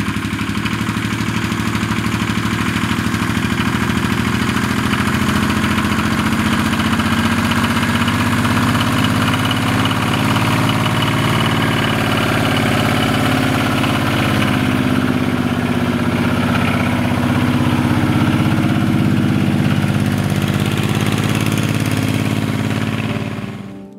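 Multicar M22 utility truck's engine running steadily at low revs, fading out near the end.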